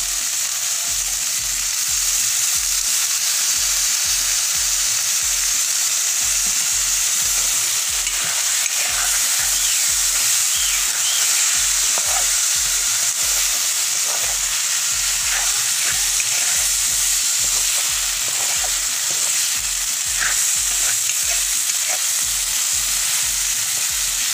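Chicken and banana flower sizzling in an oiled kadai while a metal spatula stirs and scrapes through them, with scattered clicks of the spatula against the pan over a steady frying hiss.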